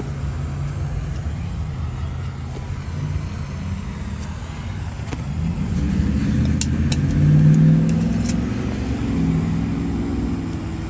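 Steady low rumble with a motor vehicle's engine rising in pitch and level about halfway through, then easing off. A few sharp clicks come during the swell.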